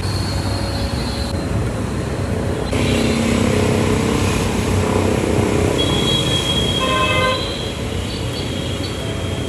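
Busy street traffic noise from passing vehicles, with a short horn toot about seven seconds in.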